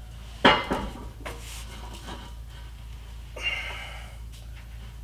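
Knocks and a scrape from the factory diesel particulate filter on a Ford 6.7 Power Stroke being worked loose from its exhaust hanger by hand: one sharp, loud knock about half a second in, a few lighter knocks after it, and a ringing scrape near the middle, over a steady low hum.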